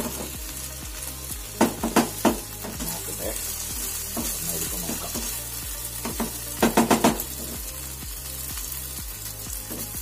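Ivy gourd pieces sizzling in a kadai as a wooden spatula stirs them. The spatula knocks against the pan in quick clusters, three times about two seconds in and about five times near seven seconds in.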